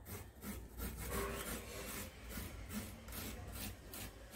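Coconut being grated by hand on a grater: rhythmic rasping strokes, about four a second.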